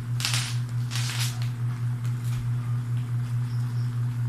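Two short plastic rustling, clicking bursts in the first second or so as the clear waterproof housing of an action camera is handled and opened, then fainter handling ticks, over a steady low hum.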